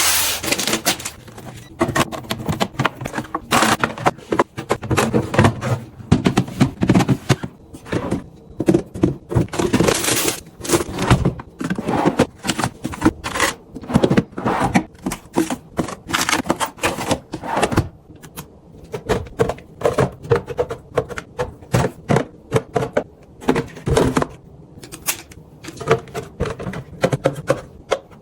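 Packaged snacks and plastic containers being handled and set down: a quick, uneven run of clicks, taps, knocks and rustles, several a second.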